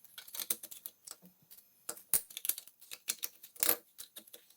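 Irregular clicks and small knocks from hand work on electrical wiring: wires, a screwdriver and switch or lamp-holder terminals being handled, with one louder knock a little before the end.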